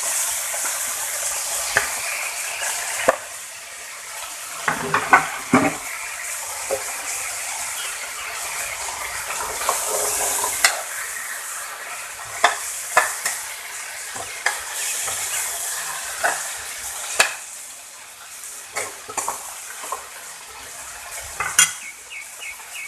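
Fried chicken pieces sautéing with onion and garlic in a little hot oil, sizzling steadily, while a utensil stirs them, knocking and scraping against the pan many times.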